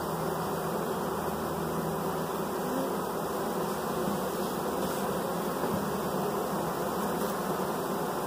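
A honey bee swarm in flight: the steady, dense buzz of thousands of bees flying around their disturbed cluster.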